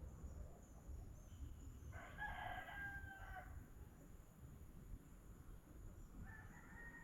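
A rooster crowing faintly, once about two seconds in for a second and a half, and again starting near the end.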